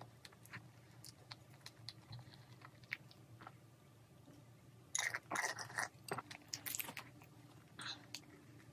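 Close-miked eating sounds: soft chewing and small mouth clicks, then louder crackling bursts about five and seven seconds in as a crisp-topped cookie choux is lifted out of its paper cup.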